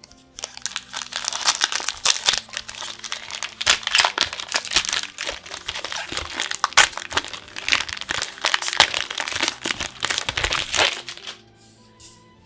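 Foil Magic: The Gathering booster pack wrapper being crinkled and crumpled by hand: a dense run of crackling that starts about half a second in and stops about a second before the end.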